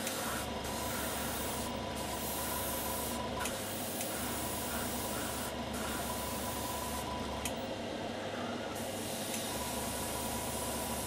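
Airbrush hissing in a series of short bursts, each a second or two long, as the trigger is pressed and released, over the steady running noise of a spray booth extractor fan. The compressor feeding the airbrush is hard to make out above the extractor.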